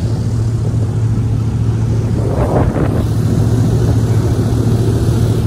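Airboat engine and caged propeller running, a loud steady drone.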